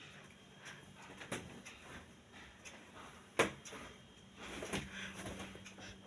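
Handling noises: scattered clicks and light knocks, one sharp knock about three and a half seconds in, then a stretch of rustling.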